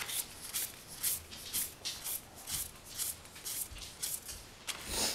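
Magic: The Gathering trading cards being slid and flicked one at a time from a stack held in the hands, a series of short, crisp swishes about two or three a second.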